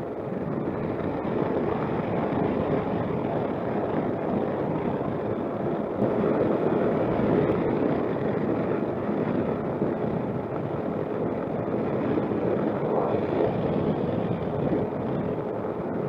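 Suzuki Burgman 200 scooter riding at a steady cruise: constant wind rush over the microphone mixed with the running engine and road noise.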